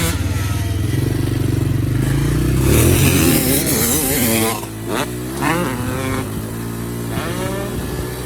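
1996 Honda CR250's single-cylinder two-stroke engine revving hard under riding, its pitch building over the first few seconds. In the second half it goes through a series of quick rises and falls as the throttle is opened and chopped.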